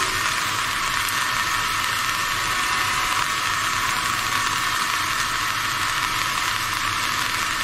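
Heavy rain falling, a thin, steady hiss with almost no low end.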